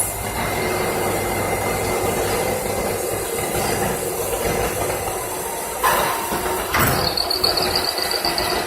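Special purpose machine machining gas elbows: steady running noise with faint hum tones. Two sharp knocks come about six and seven seconds in, followed by a high steady whine for the last second and a half.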